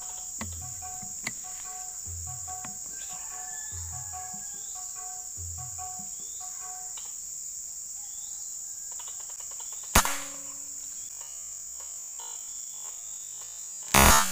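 Steady high drone of insects, with a short low call repeating about every second and a half through the first seven seconds. A sharp crack comes about ten seconds in and a louder one near the end: air rifle shots.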